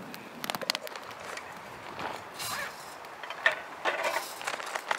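Wood fire crackling with scattered sharp pops, then creaks and knocks of long wooden poles being handled in a tripod over the fire pit.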